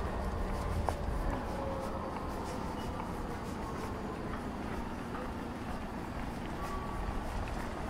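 City-street ambience: a steady low rumble of traffic with faint footsteps on the pavement.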